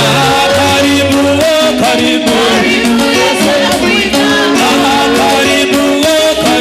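Upbeat gospel worship music with singing voices over a bass line and a steady shaker beat.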